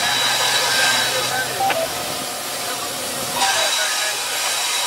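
GE AC4400CW diesel locomotive leading an intermodal train, engine running as it approaches, with a loud steady hiss over its low hum. The hiss eases about two seconds in and cuts back in sharply a second and a half later.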